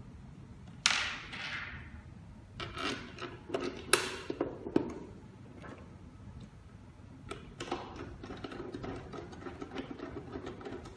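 Small metal parts and a hand screwdriver being handled on a fingerprint door lock. A sharp clack comes about a second in, then a cluster of clicks and taps. In the last few seconds a run of quick small ticks follows as a mounting screw is turned into the lock's plate.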